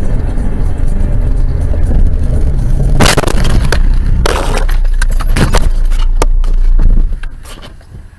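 A car's road and engine noise on a wet road, broken about three seconds in by a loud crash: a heavy impact with breaking and rattling knocks that keep coming for a couple of seconds as the car collides. The low rumble dies away about seven seconds in.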